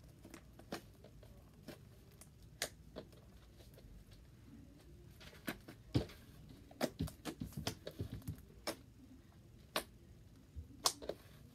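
Fingers poking and squeezing a lump of slime, making irregular small pops and clicks, busiest about halfway through.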